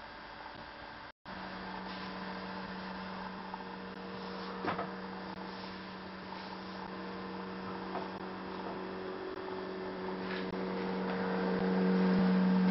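A steady electrical hum starts after a short dropout about a second in and grows louder toward the end before cutting off. Two or three faint clicks sound over it.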